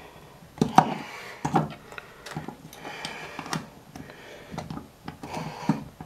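Small hard-plastic toy sign and its frame being handled and pushed together: about ten irregular plastic clicks and knocks.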